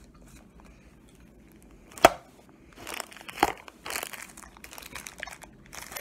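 Clear plastic bag being handled, crinkling and rustling in bursts through the second half, with one sharp knock about two seconds in.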